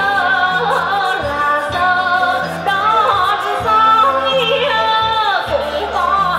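Vietnamese folk song: a voice singing ornamented phrases with sliding, bending notes over a live instrumental accompaniment with steady held low notes.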